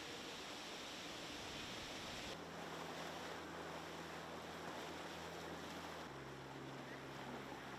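Faint steady wind and water noise on a sailboat, with a low hum underneath. The background changes abruptly twice, about two and a half and six seconds in.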